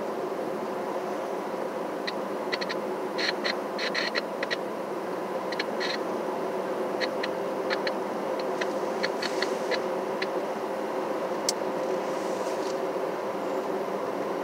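Steady running and road noise of a car being driven, with a constant hum. A scatter of light, irregular clicks or rattles comes between about two and ten seconds in, with one sharper click shortly after.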